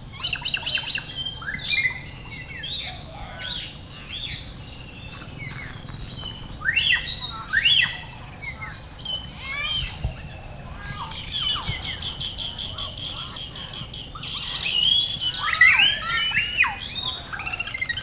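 Several wild birds chirping and calling over one another in quick, rising and falling whistled notes, with a rapid even trill held for about two seconds past the middle.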